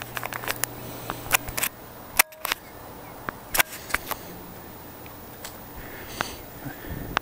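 Handheld camera handling noise: scattered clicks and taps. A low hum runs under the first two seconds and breaks off in a short dropout.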